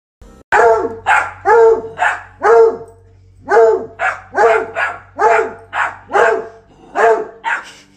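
A dog barking over and over, about two barks a second, each bark short and falling in pitch, with a brief break about three seconds in.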